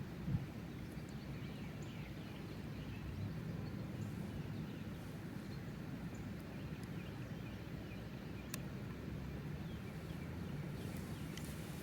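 Steady low rumble of wind on the microphone, with faint bird chirps in the first few seconds and a single light click.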